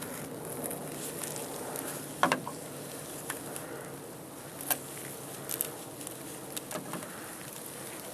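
Scattered sharp clicks and small knocks from hands and tools working on a van's door handle mechanism inside the door, over a steady low hum. The loudest pair of clicks comes about two seconds in.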